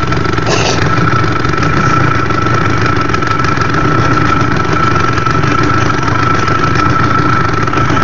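An engine idling steadily, with a constant high whine running over its low running noise.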